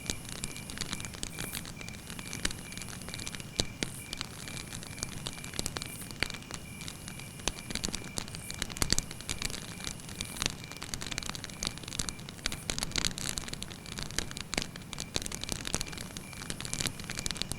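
Wood campfire crackling: burning wood snapping in many irregular sharp pops, a few louder than the rest, over a low steady rush of flame.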